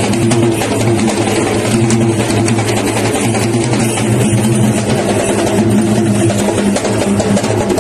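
Sri Lankan low-country yak bera drums beating in rapid strokes for a devil dance, with a steady low hum underneath.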